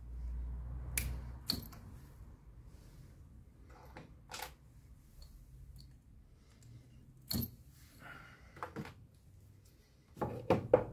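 Scattered sharp clicks and taps of a small screwdriver prying the retaining clips off the plastic electrical connectors on a Landi Renzo LPG injector rail, ending in a quick burst of louder clicks and knocks.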